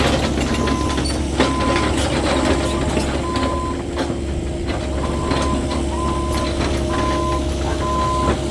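Cat 308E2 mini excavator running: its diesel engine hums steadily while a travel alarm beeps on and off, with scattered clanks over it.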